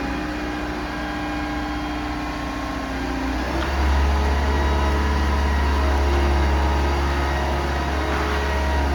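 Yanmar B95W wheeled excavator's diesel engine running steadily with a whining tone on top; about three and a half seconds in it changes note and gets louder, with a deeper rumble.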